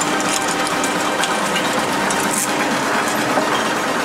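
Twin-shaft industrial shredder running empty, its steel cutter discs turning with a steady mechanical hum and scattered clicks.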